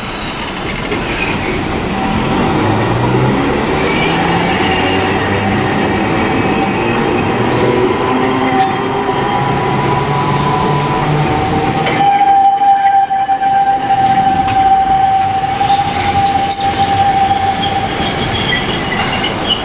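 Hiroshima Electric Railway streetcars running on street track. A tram pulls away over the rails, then a long, steady wheel squeal comes in about twelve seconds in as a tram takes a tight curve, and fades near the end.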